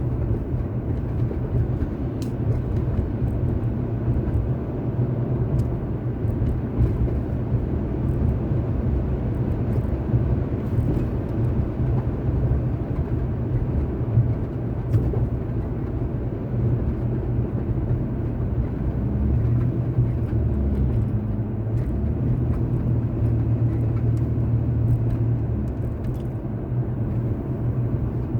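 Car driving along, with a steady low rumble of engine and tyre road noise.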